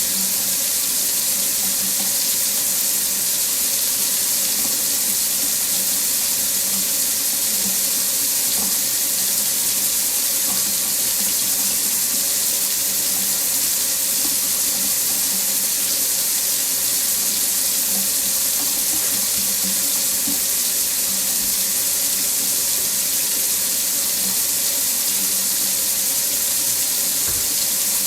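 Water running steadily from a faucet into a sink, a constant even rush with no change.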